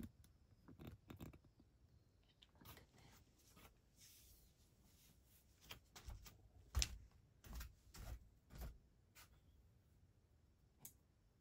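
Mostly quiet room with scattered light clicks and rustles of things being handled, and a few dull thumps between about six and nine seconds in, the loudest just before seven seconds.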